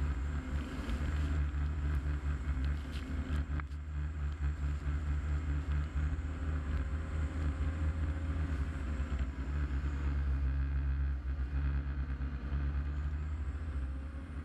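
Lifeboat engines running steadily with a low, even drone, fading out near the end.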